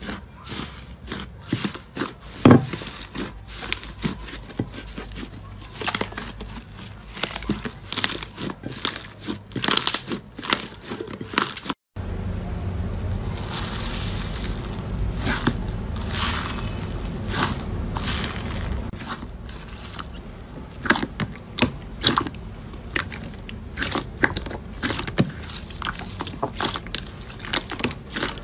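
Hands squishing and poking thick slime, giving irregular wet pops and crackles, one sharp pop about two and a half seconds in. After a break about 12 s in, foam-bead slime (floam) crunches and crackles densely as a hand presses into it.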